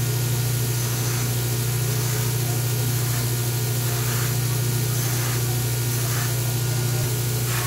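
Electric bench grinder running steadily with a strong low hum, a small dagger part held against its spinning buffing wheel for polishing.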